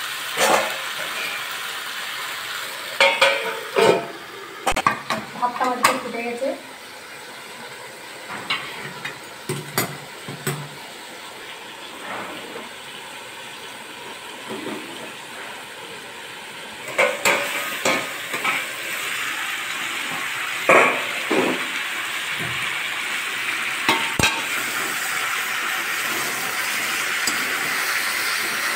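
Chicken and potato pieces sizzling as they are slow-fried (kosha) in a spiced masala in a metal kadai. A metal spatula scrapes and knocks against the pan in clusters near the start and again from about two-thirds of the way in. The sizzling drops to a quieter stretch in the middle.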